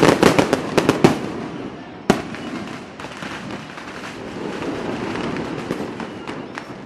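Fireworks going off: a rapid volley of sharp bangs and crackles in the first second, one sharp bang about two seconds in, then a steadier crackle with scattered pops that slowly fades.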